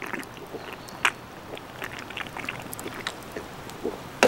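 A person drinking from an aluminium drink can, with small gulping and liquid sounds and scattered light clicks, then a sharp knock near the end as the can is set down on the table.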